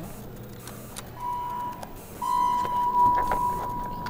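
Elevator's electronic beeper sounding a steady high tone twice: a short beep, then a longer one of about two seconds, with a few light clicks during the second.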